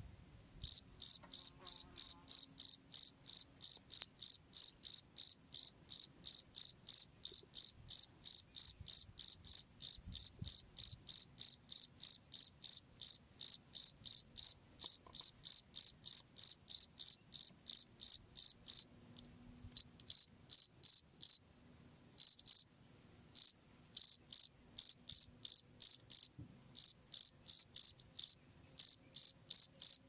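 Cricket (jangkrik) chirping: an even run of short, high-pitched chirps, about three a second, pausing briefly a few times in the second half.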